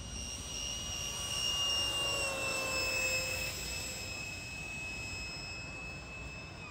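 A 64mm electric ducted fan on a cardboard-and-foam RC jet whining in flight: a steady high whine that swells about two seconds in, then drops slightly in pitch as the plane passes.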